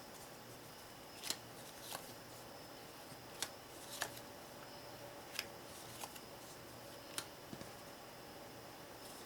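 Rook playing cards being handled and laid down one at a time, giving seven sharp light snaps spaced about a second apart.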